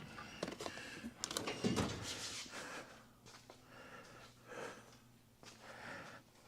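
Hand tools being handled and rummaged for at a workbench: a run of sharp clicks and scraping rustles, busiest in the first two seconds, then lighter, sparser handling noise.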